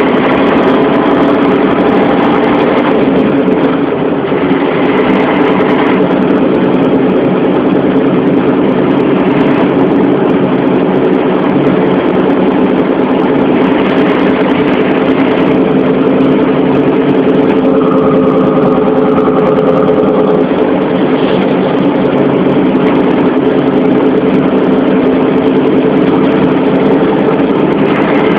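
Heavy vehicle engine running steadily: a continuous, loud drone with no breaks or pauses.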